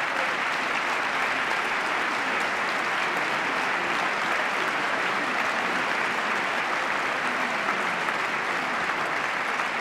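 Large audience applauding steadily, a dense unbroken clapping.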